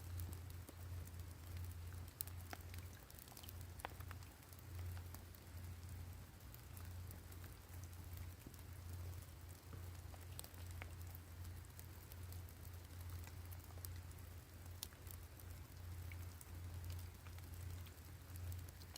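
Faint rain: scattered raindrops ticking sharply over a soft, even patter. Beneath it runs a low hum that pulses unevenly.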